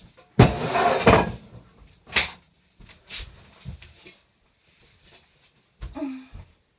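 Household handling noises: a loud rustling clatter lasting about a second near the start, then a few scattered knocks and clicks.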